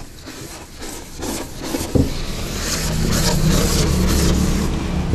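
A whiteboard being wiped clean by hand, with irregular rubbing strokes across the board. About two and a half seconds in, a steady low hum comes up and holds, louder than the wiping.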